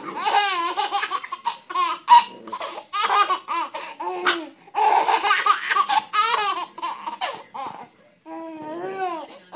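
Baby laughing hard in repeated high-pitched bursts and squeals, with brief pauses between fits.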